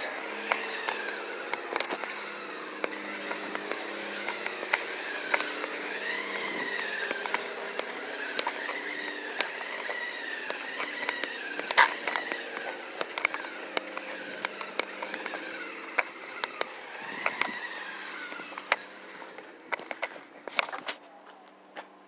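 Remote-control RZR XP side-by-side running on pavement: its motor whine rises and falls about once a second as the throttle is worked, over a steady tyre hiss, with scattered sharp clicks.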